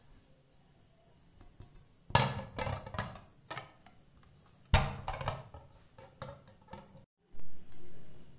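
Two sharp knocks about two and a half seconds apart, each followed by a short rattle and a few lighter clicks: a baking tin and plate being handled and set down on a table. A brief louder sound follows near the end.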